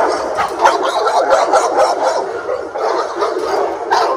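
Kennel dogs barking, several at once, in a dense overlapping racket without a break.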